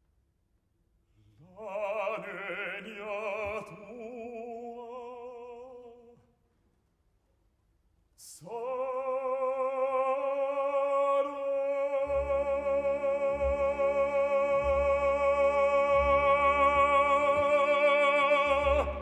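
Operatic baritone singing with a wide vibrato. A short phrase comes first, then after a pause and a breath one long sustained note. About midway a low held orchestral chord comes in underneath it.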